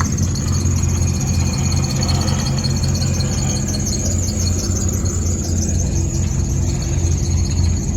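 Mitsubishi Eclipse's 420A four-cylinder engine idling steadily with a continuous high-pitched squeal, which the owners put down to the serpentine belt.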